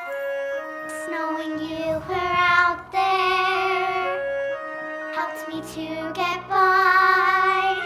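A young singer's voice sings a musical-theatre song over instrumental accompaniment, holding two long notes with vibrato.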